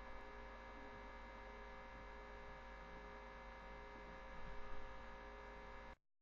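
Faint steady electrical mains hum, a buzz of many evenly spaced steady tones, with a brief faint sound about four and a half seconds in. The sound drops to dead silence just before the end.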